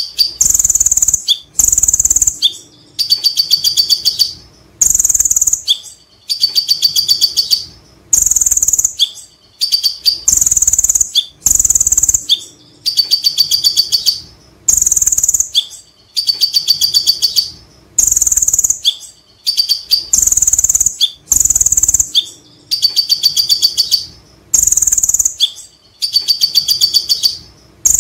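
Male Van Hasselt's sunbird (kolibri ninja) singing the same phrase over and over, about every two seconds. Each phrase is a short, piercing, very high whistle followed by a fast run of sharp ticking notes.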